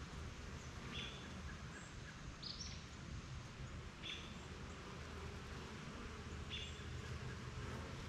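Honeybees buzzing faintly around their hive in a low, steady hum, with four short bird chirps spaced a second or two apart.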